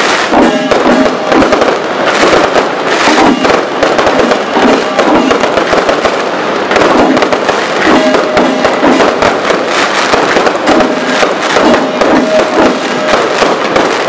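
Aerial fireworks shells bursting overhead in rapid, continuous succession: a dense, unbroken crackle and popping of reports at a steady high loudness.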